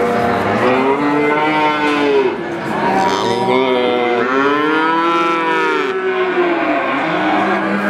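Calves mooing: several long calls one after another, partly overlapping, the longest and loudest about four to six seconds in.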